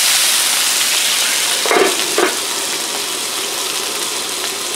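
Water squirted onto a hot flat-top griddle sizzling and hissing into steam around diced potatoes, loudest at first and easing off. About two seconds in there are two brief clatters as a steamer dome is set down over the potatoes, and the sizzle goes on under it.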